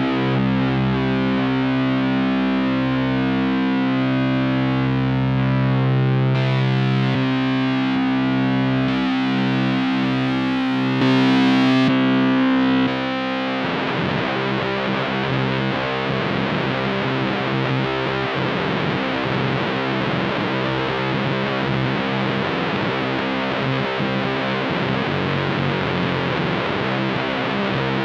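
Electric guitar through a fuzz pedal into a '69 Laney Supergroup valve amp, playing long, held, heavily distorted chords that ring out. About halfway through, the sound shifts to a harsher, noisier sustained chord.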